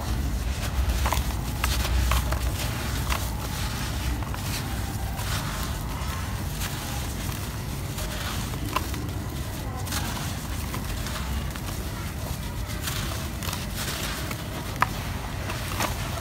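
Hands crumbling and squishing red dirt in a bucket of muddy water: crackly crunching of dry clumps breaking, with soft wet squelches, over a low rumble that fades about two-thirds of the way through.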